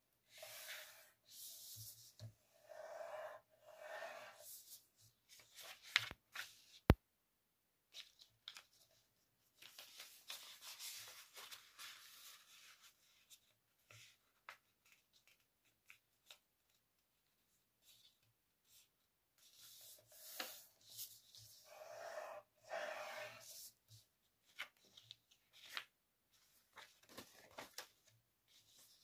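A sheet of A4 paper being folded and creased by hand: rustling and rubbing in bursts as fingers smooth the folds, with a single sharp click about seven seconds in.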